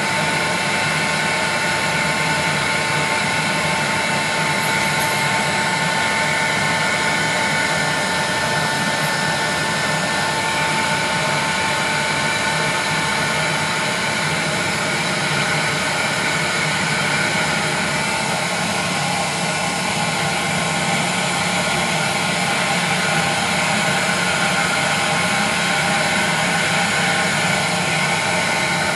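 Handheld heat gun running on its high (1200-watt) setting, blowing hot air over the glass face of a CRT picture tube. It is a steady rushing whir with a thin motor whine over it.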